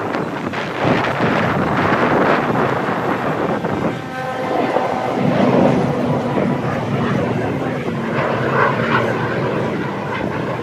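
Aircraft engine noise from a plane flying past, loud and continuous, with a steady engine tone coming through between about four and eight seconds in.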